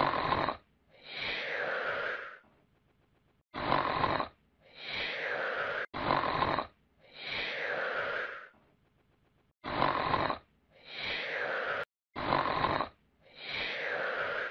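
A sleeping puppy snoring in a regular rhythm. Each breath is a short, louder snore followed by a longer, softer one that falls in pitch, about five times over.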